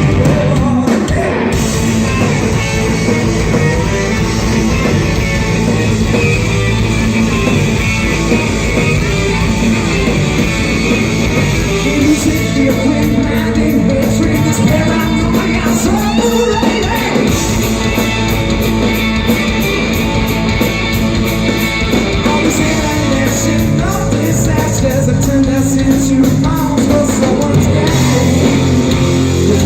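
Live rock band playing loudly with electric guitar and drums, a singer's voice over the band. From about twelve seconds in, a cymbal keeps a fast steady beat.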